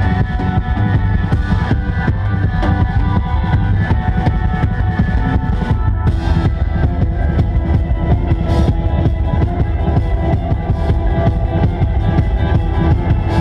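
A post-rock band playing loud live music: a full drum kit with busy bass drum and snare hits under many held, ringing notes.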